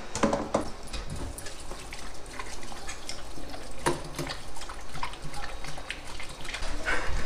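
Siberian husky lapping water at a stainless steel sink with the tap running: irregular wet laps and splashes.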